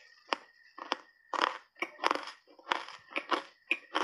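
Ice cubes coated in matcha powder being crunched between the teeth: a string of irregular sharp crunches, about two a second.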